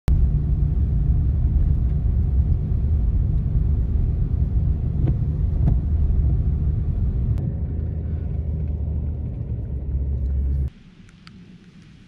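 Low, steady road and engine rumble heard inside a vehicle's cabin while driving over a snow-covered dirt road, with a few faint clicks. A little before the end it cuts abruptly to much quieter outdoor noise with a few light ticks.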